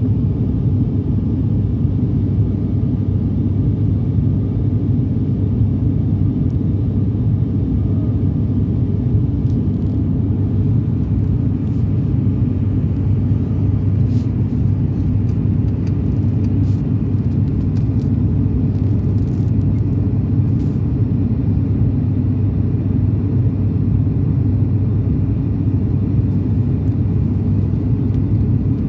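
Airliner cabin noise in flight: a steady low rumble of the engines and airflow, heard from inside the cabin.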